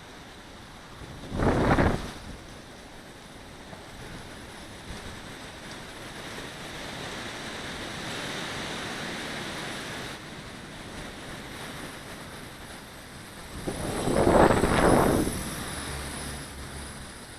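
Strong wind rushing over the microphone, with two loud gusts buffeting it, a short one about a second and a half in and a longer one about fourteen seconds in.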